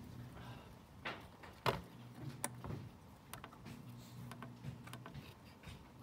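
Irregular small plastic clicks of the ZedBoard's pushbuttons and switches being pressed by a finger, the sharpest about a second and a half in, over a faint low hum.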